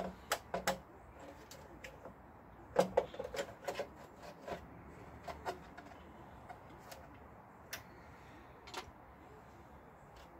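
Plastic body panel of a Honda Melody scooter being handled and pressed into place on the frame: scattered sharp clicks and knocks, the busiest cluster about three seconds in, then single clicks every second or so.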